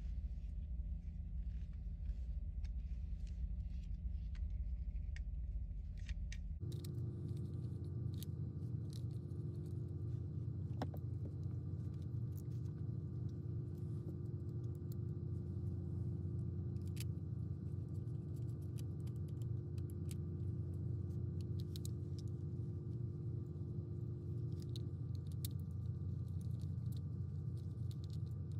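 Steady low background hum, with scattered light clicks and taps of small plastic toy parts being handled and fitted together. The hum changes character abruptly about six seconds in.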